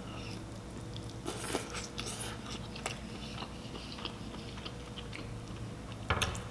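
Close-miked eating of a seafood boil: biting and chewing with scattered short clicks and crunches, and one louder short crunch just after six seconds.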